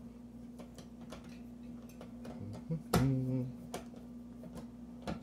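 Screwdriver backing the side screw out of a steel gangable electrical box: a string of light metal clicks and ticks, with one louder knock about three seconds in.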